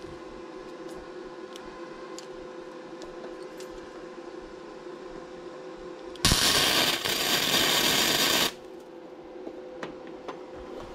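MIG welder welding a spacer bushing onto a steering shaft: a loud, steady hiss of the arc for about two seconds, starting a little after halfway in, with a brief falter.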